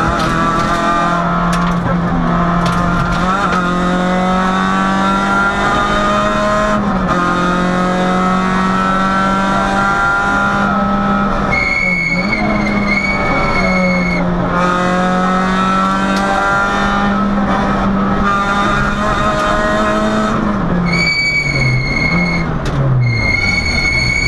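Peugeot 106 rally car engine, heard from inside the cabin, pulling hard. Its pitch climbs steadily and drops back at each quick upshift, then falls near the end as the car slows. A high steady squeal sounds over it twice, for two to three seconds each time: about halfway through and again near the end.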